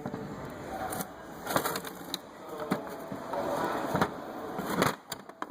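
Metal clicks and scraping of brake parts being handled and fitted at the rear caliper, with five or so sharp knocks about a second apart.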